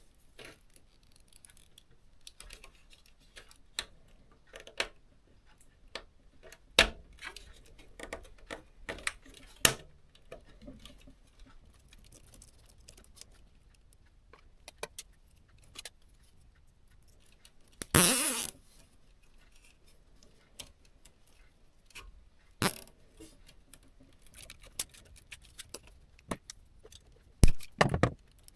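Scattered clicks, taps and small metallic rattles of hands handling computer parts and screws during assembly, with a brief rasping noise a little past the middle and a few sharp knocks near the end.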